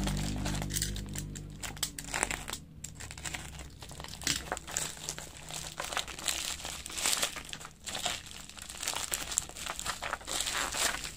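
Plastic mailer pouch and bubble wrap crinkling and rustling in irregular handfuls as the pouch is slit and pulled open.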